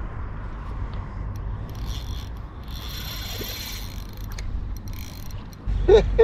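A spinning fishing reel's mechanism whirring for a couple of seconds in the middle, over a steady low rumble. The sound changes abruptly near the end, where a voice begins.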